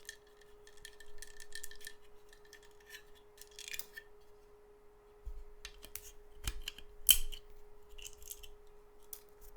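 Supports being snapped and pulled off a resin 3D print by hand: a run of small irregular plastic clicks and cracks, the sharpest about seven seconds in, over a faint steady hum.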